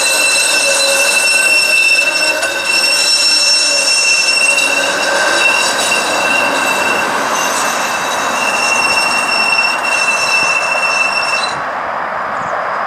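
Flexity Outlook streetcar's steel wheels squealing on the tight curve of the loop track: a loud, high, steady screech of several pitches at once that wavers in strength and cuts off sharply about eleven and a half seconds in, leaving a steady rushing noise.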